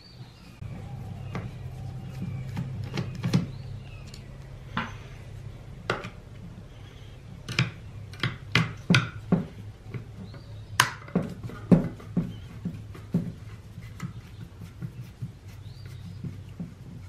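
Screwdriver clicking and knocking against a chainsaw's plastic housing as the screws behind the anti-vibration spring mounts are worked, a scatter of sharp clicks over a steady low hum.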